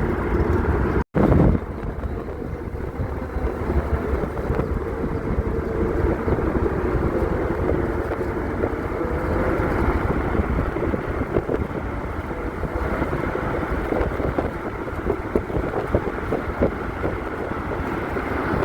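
Wind buffeting the microphone over the steady rumble of a vehicle and its tyres moving fast on a highway, heard from the open back of the vehicle. The sound cuts out for an instant about a second in.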